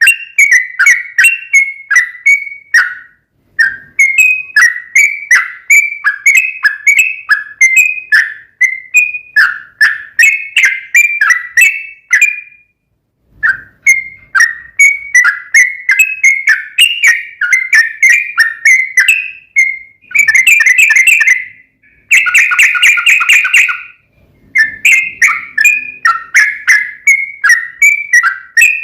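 Yellow-vented bulbul (trucukan) singing a long, fast run of short chirping notes, about four a second. It pauses briefly twice, and partway through it breaks into a denser, harsher chatter for a few seconds.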